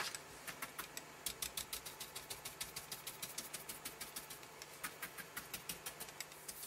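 Quick, repeated soft taps of a fluffy ink duster brush dabbing Distress ink onto card, several taps a second, stopping just before the end.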